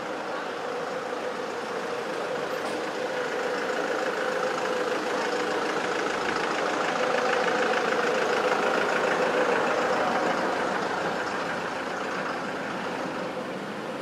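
A motor vehicle's engine running close by. It grows louder to a peak about eight seconds in, then fades as it passes.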